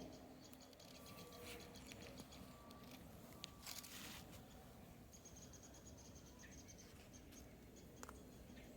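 Faint footsteps crunching in packed snow: quiet clusters of crackling ticks, with one louder crunch about four seconds in.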